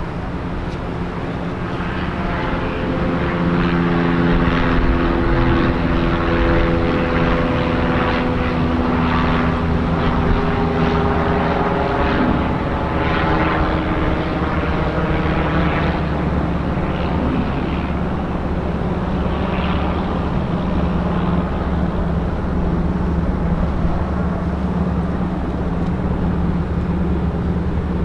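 A passing engine drones steadily, its pitch falling slightly over the first dozen seconds before it holds level.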